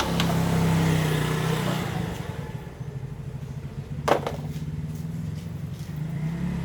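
Engine running with a steady low hum that drops after about two seconds to a quieter, pulsing rumble like an idle. A sharp click sounds about four seconds in.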